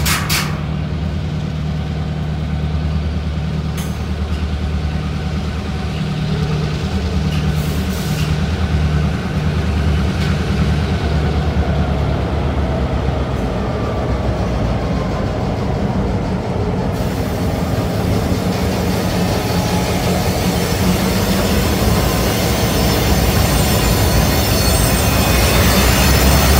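A freight train rolling slowly past close by, diesel locomotives running with a steady low drone that grows louder as they come alongside, and a faint squeal of wheels on the rail. A single sharp metallic knock right at the start.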